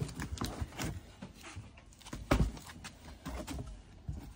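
Cardboard box being handled and opened: irregular knocks, scrapes and rustles of the box and its flaps, with a heavier thump about two seconds in.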